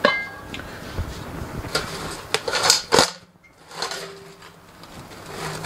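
Stainless-steel autoclave parts being handled: a metal piece set down with a knock and a brief ring at the start, then several light knocks and clinks as hands rummage inside the metal pot.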